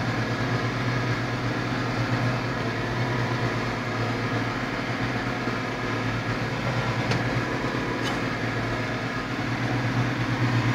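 Massey Ferguson 5455 tractor's four-cylinder diesel engine running steadily while driving on the road, heard from inside the cab as an even, unchanging drone.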